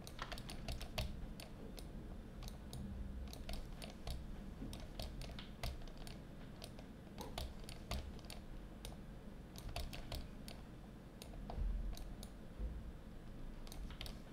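Quick, irregular clicks of a computer keyboard and pointer buttons, in clusters, with a low thud about eleven and a half seconds in.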